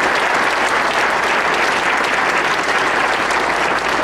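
An audience applauding.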